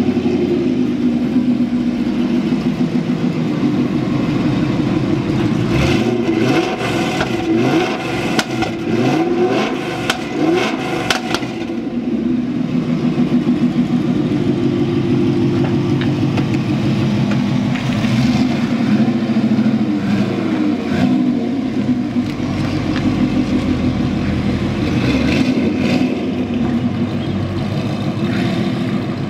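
1990 Corvette ZR-1's 5.7-litre LT5 32-valve V8 running through a Corsa exhaust, just started and idling steadily. It is blipped in several quick revs between about six and eleven seconds in, then settles to low, even running as the car pulls away slowly.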